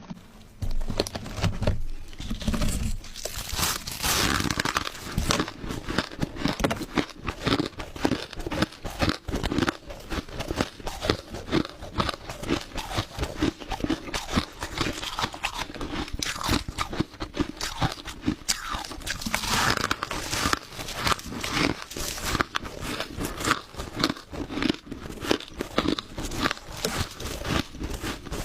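Crushed ice being bitten and chewed close to the microphone: a continuous run of loud, crisp crunches, starting about a second in.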